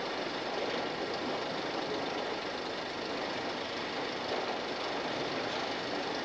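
Steady running noise of unloading machinery: crane and engine sound going on without a break.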